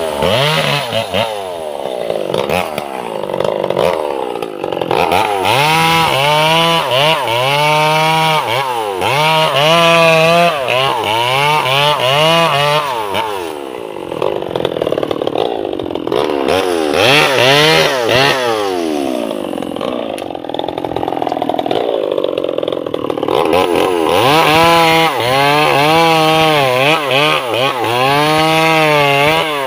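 Two-stroke chainsaw cutting sengon logs, the engine revving up and falling back again and again as the throttle is squeezed and eased, with a few brief spells of lower engine speed between cuts.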